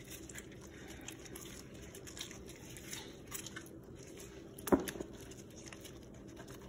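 Faint wet rubbing and squishing of gloved hands working a cut lime over and inside a whole yellowtail snapper in a basin of water, with small scattered clicks and one sharp click about two-thirds of the way through.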